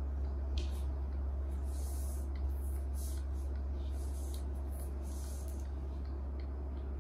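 Printed cotton cloth rustling in several short swishes as a white plastic pipe is pushed through its sewn sleeve, over a steady low hum.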